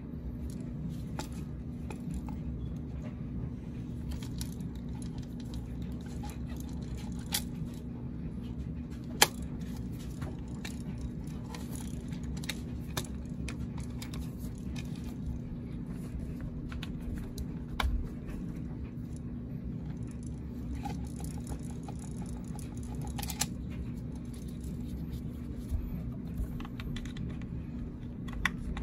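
Spark plug wire boots being pulled off one distributor cap and pushed onto a new one: scattered small clicks and rubbing, the sharpest click about nine seconds in, over a steady low hum.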